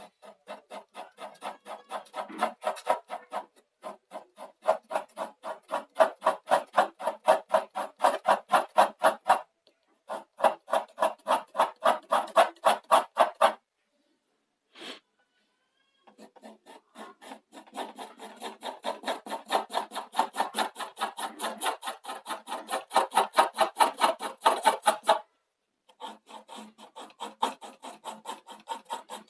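Graphite pencil hatching on drawing paper: quick, even scratching strokes, about four or five a second, in runs of several seconds broken by short pauses.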